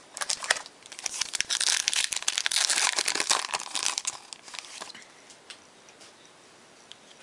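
Foil wrapper of a trading-card pack being torn open and crumpled, a dense crinkling that is loudest about two to four seconds in and dies away after about five seconds.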